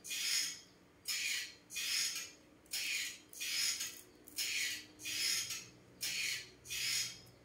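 Rhythmic rasping strokes, about three every two seconds, each a short hiss-like scrape, going on steadily from an unseen source.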